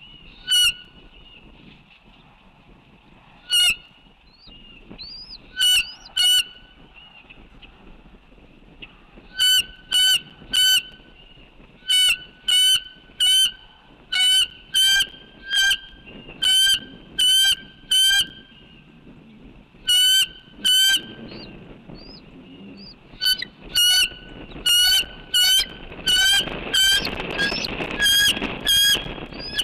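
A large bird giving short, loud calls, a few spaced ones at first, then quicker runs of calls, often in pairs. A faint steady hum runs underneath.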